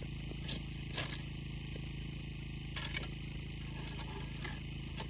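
A steady, even engine hum, like a motor idling, with a few faint clicks.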